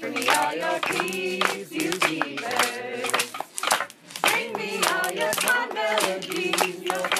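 Voices singing or chanting in time with rhythmic hand claps.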